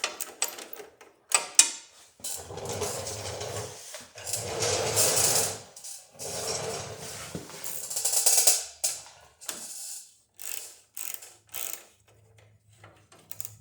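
Hand ratchet with a 10mm socket backing out bolts, its pawl clicking in several long runs, then a few separate clicks as the bolts come loose.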